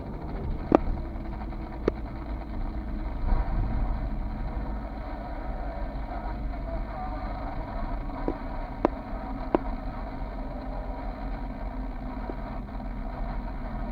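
Car driving slowly, a steady low rumble of engine and tyre noise heard from inside the cabin. A few sharp clicks stand out, the loudest about a second in, others near two seconds and twice around nine to ten seconds in.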